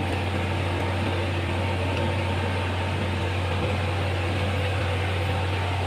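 Steady low drone of a running machine: a constant hum with an even hiss over it.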